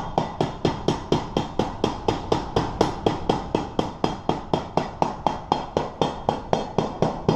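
A rapid, very even series of sharp knocks, about four to five a second, each dying away quickly.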